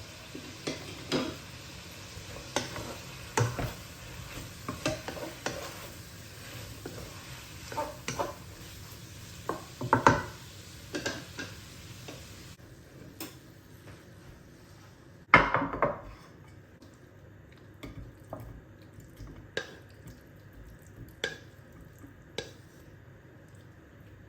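Scattered clinks and knocks of kitchen utensils against dishes and pots, as in stirring and handling cookware, with one louder clatter about fifteen seconds in.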